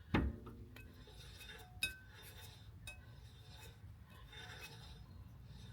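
Metal-on-metal clinks from tightening and backing off the axle nut on a caravan wheel hub to set the new wheel bearings: a sharp knock at the start, a ringing clink a little under two seconds in, and faint rubbing between.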